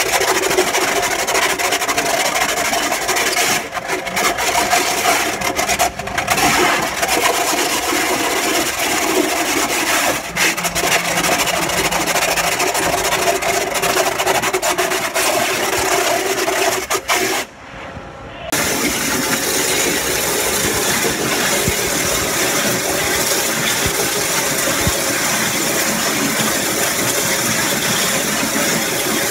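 Flow CNC waterjet cutting through thick rubber: the high-pressure jet makes a loud, steady hiss with a rasping edge. It breaks off for about a second a little past the middle, then resumes.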